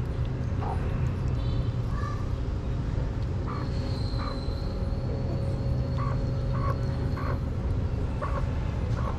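Outdoor ambience: a steady low rumble with short calls repeating irregularly, about one a second, and a thin high tone held for a couple of seconds in the middle.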